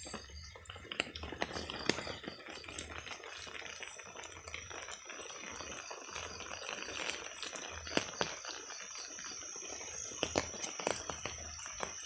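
Footsteps and rustling through wet grass and undergrowth, with scattered clicks and taps. A steady high-pitched whine comes in about four seconds in.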